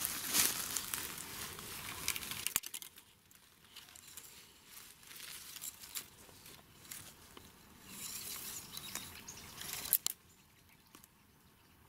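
Dry grass and leaf litter rustling and crackling, dense at first, then dropping suddenly about two and a half seconds in to fainter scattered rustles, with another spell of rustling about eight to ten seconds in.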